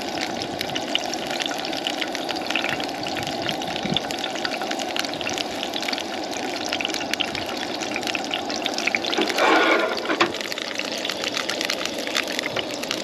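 Asparagus sizzling in hot oil in a frying pan on a propane camp stove: a steady crackling hiss. A brief louder sound cuts in about nine seconds in.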